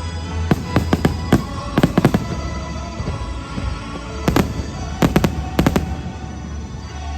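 Fireworks bursting in quick clusters of sharp bangs, several in a row then a pause, over show music with a steady low bass.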